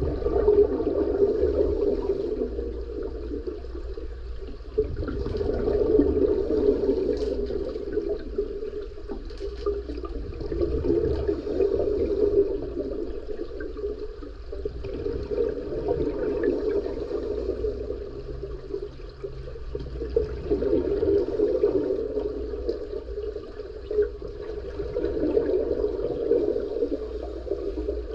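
Scuba diver breathing underwater through a regulator: a rush of exhaled bubbles swells and fades about every five seconds, in an even breathing rhythm.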